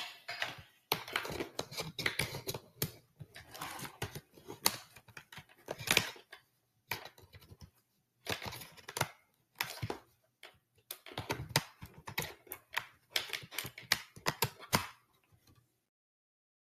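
Irregular clusters of clicks and rustles, coming in short bursts with brief pauses, over a faint low hum; they stop suddenly near the end.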